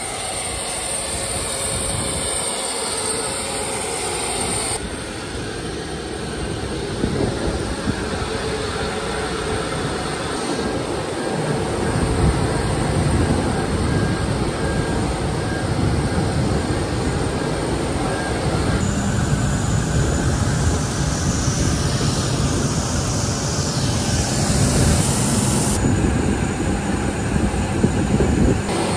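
Steady rumble and whine of jet turbines on an airport apron. The tone changes abruptly about five, nineteen and twenty-six seconds in, and the low rumble grows stronger from about twelve seconds in.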